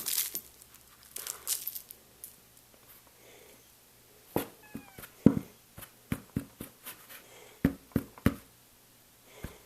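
Sharp plastic clicks and knocks, irregular and scattered through the second half, from handling a Shark Rotator vacuum cleaner's parts with the motor off, after brief rustling near the start.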